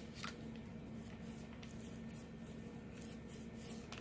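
Short, soft rubbing and scratching strokes of an applicator working sticky resin into fiberglass cloth laid on a skateboard deck, over a low steady hum.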